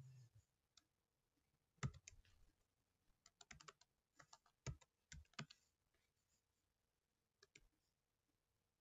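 Faint computer keyboard keystrokes as a password is typed: single taps and short quick runs of keys, loudest about two seconds in, with a burst of rapid strokes around the middle.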